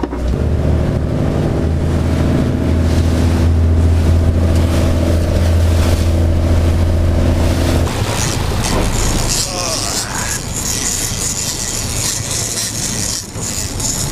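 Outboard motor running at a steady drone. About eight seconds in the sound cuts to a hiss of wind and wake water rushing past the boat's stern.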